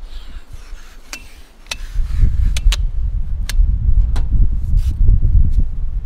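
Telescoping ladder clicking and knocking as its sections are extended and set against a rooftop tent, a series of sharp clicks. From about two seconds in, a loud, uneven low rumble sits underneath.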